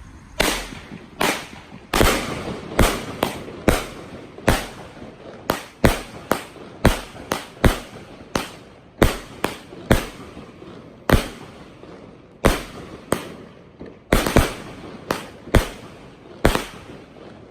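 A firework going off as a rapid, irregular series of loud bangs, about two a second, each with a short echoing tail.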